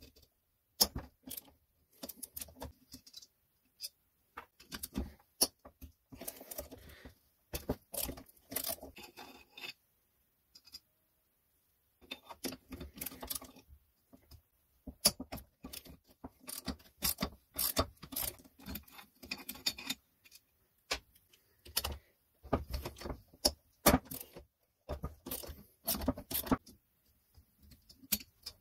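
Hand socket ratchet on a long extension clicking in short runs as it turns bolts on a two-stroke chainsaw engine's crankcase, with light metal clinks. There are pauses between the runs, and a longer quiet gap near the middle.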